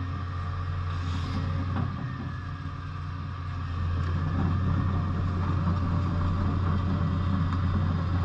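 Doosan DX225LC-3 hydraulic excavator's diesel engine running steadily, growing louder about four seconds in.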